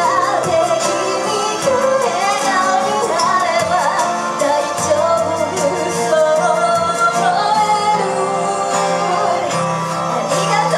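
A woman singing into a handheld microphone over instrumental accompaniment. Her amplified voice bends and glides through a sustained melodic line above a steady bass and beat.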